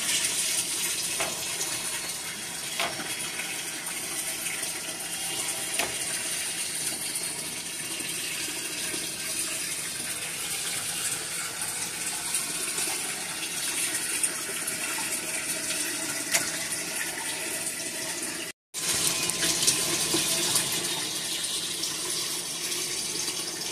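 Kitchen faucet running steadily into a metal sink, with a few light knocks, cutting out for a moment near the end.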